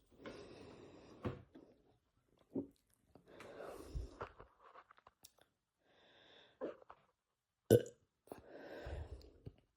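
A man burping several times, brought on by gulping carbonated Sprite, with mouth and swallowing sounds between the burps. A single sharp click about three-quarters of the way through is the loudest sound.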